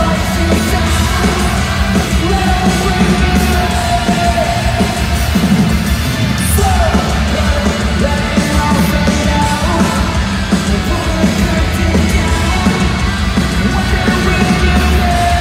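Pop-punk rock band playing live and loud, heard from the audience: distorted electric guitars, bass and drums with an electric violin playing held, sliding notes over them.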